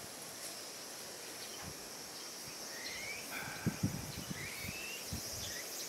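Steady high drone of insects, with a few short bird chirps about halfway through. Midway there is a cluster of soft rustling and snapping as watermelon vines are pulled and pruned by hand.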